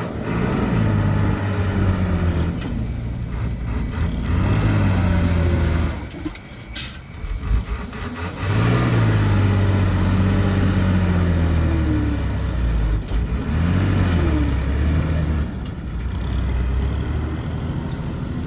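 Heavy-vehicle engine revving hard in repeated surges, its pitch rising and falling, as a tractor and a stuck truck work in mud. The engine eases off for a couple of seconds in the middle, with a brief sharp hiss about seven seconds in.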